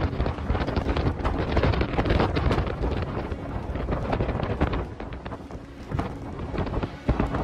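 Strong, gusty wind from a nearby dust-filled tornado buffeting the microphone, in uneven surges with occasional bumps.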